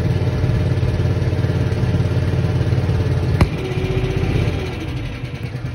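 Wooden canal boat's engine running steadily with a low rumble. A single sharp click comes about three and a half seconds in, and after it the engine sounds quieter.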